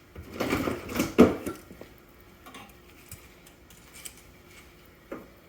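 Metal tools clanking and scraping against pipe fittings, with a sharp knock about a second in, then a few light clinks.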